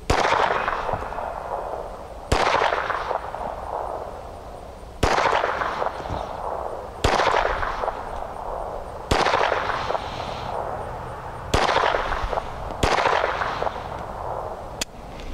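Seven pistol shots from a Phoenix Arms HP25 .25 ACP semi-automatic, fired at an uneven pace roughly two seconds apart. Each sharp crack is followed by an echo that dies away over a second or so.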